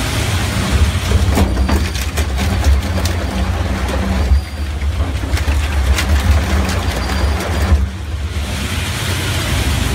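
Low-speed plastic shredder running under load: a steady low motor drone while the blades chew through plastic scrap and rope with irregular sharp cracks and snaps.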